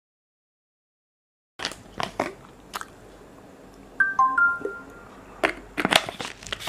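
Several sharp clicks and knocks, with a quick run of four or five short electronic beeps stepping down in pitch about four seconds in.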